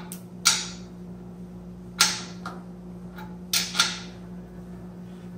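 Click-type torque wrench tightening a crankshaft main bearing cap nut, giving several sharp metallic clicks at irregular gaps of a second or two as it is pulled to its 45 ft-lb setting. A steady low hum runs underneath.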